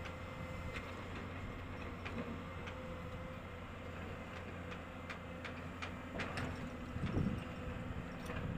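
Heavy diesel construction machinery running steadily with a low hum, with scattered clicks and knocks. The machine gets louder for a moment about seven seconds in.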